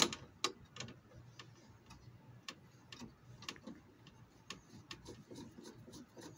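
Phillips screwdriver driving small plastic screws into a breaker hold-down bar, giving faint, uneven clicks and ticks about two a second.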